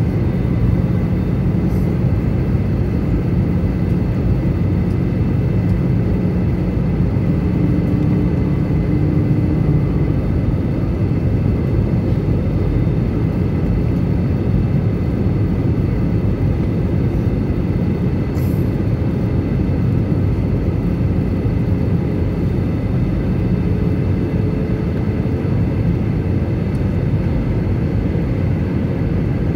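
Steady cabin noise inside an Airbus A320-214 descending toward landing: a low, even rumble of airflow and its CFM International CFM56-5B engines, with faint steady whining tones above it.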